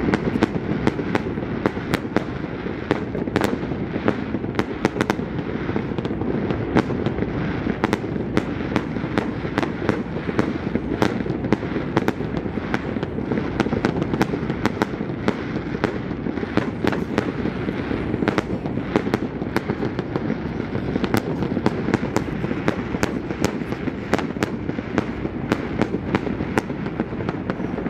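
Fireworks going off in a rapid, unbroken barrage of sharp cracks and bangs over a constant low noise.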